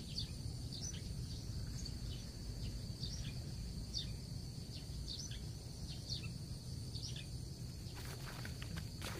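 Outdoor ambience: a steady high insect drone, with a bird giving short high chirps about once a second over a low rumble. A few faint clicks come near the end.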